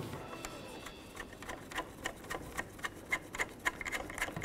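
Hand ratchet clicking in short, even ticks, about four a second, as a bolt is run in.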